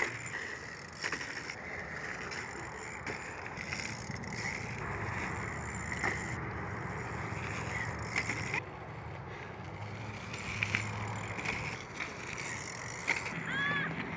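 BMX bikes riding over dirt jumps, with tyres on loose dirt and scattered rattles and clunks from the bikes, over a steady outdoor hiss.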